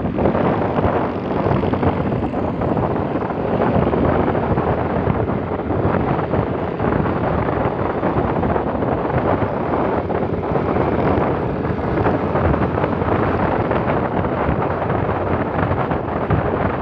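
Wind buffeting the microphone on a moving motorcycle, a steady loud rush with the bike's engine and tyre noise underneath.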